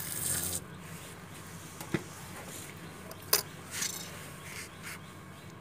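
Water jetting from a hand pump sprayer onto wet potting soil, hissing and cutting off about half a second in. A few light taps and scrapes follow, the sharpest about two seconds and three and a half seconds in.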